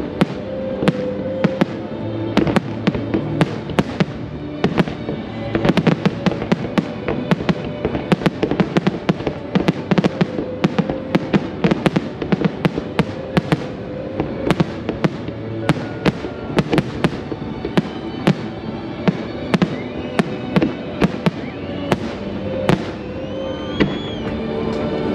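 Aerial firework shells bursting in quick succession, many sharp bangs one after another, with music playing underneath.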